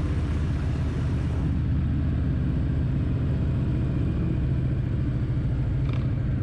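Harley-Davidson V-twin motorcycle engine running steadily at low speed, with wind hiss that drops away about a second and a half in. A brief faint tick comes near the end.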